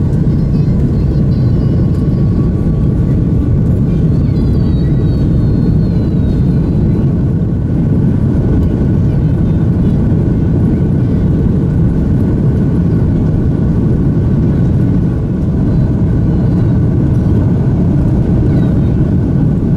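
Airbus A330-300's Rolls-Royce Trent 772B turbofans at takeoff thrust during the takeoff roll, heard inside the cabin: a loud, steady low rushing noise with rumble from the wheels on the runway and a few faint steady whining tones above it.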